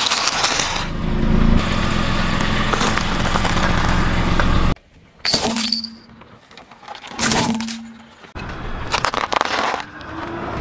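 A car tyre rolling over plastic toys and hard candy canes, crushing them with cracking and crunching, under a low steady hum from the car. Several separate crushes follow one another with sudden breaks between them.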